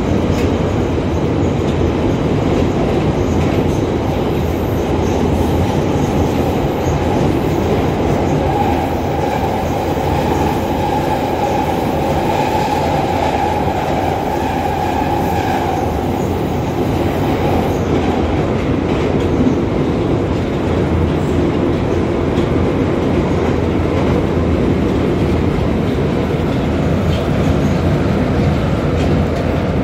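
81-540.2 metro car running between stations, heard from inside the car: a steady, loud rumble of wheels and running gear on the rails. A sustained high tone comes in for several seconds in the middle.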